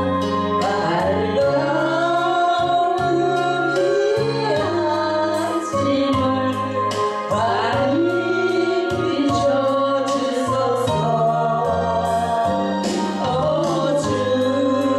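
Gospel song: singing over an instrumental accompaniment with sustained bass notes and a steady beat.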